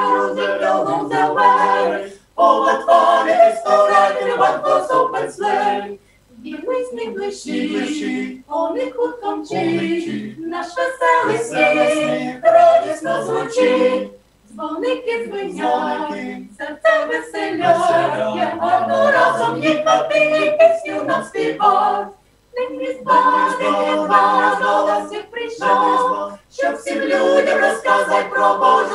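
Small mixed choir of men's and women's voices singing unaccompanied in harmony, in phrases a few seconds long with short breaks for breath between them.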